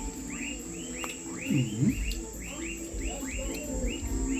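A bird repeating a short chirp about four times a second, each note rising then falling. Underneath are a steady thin high whine and a low hum.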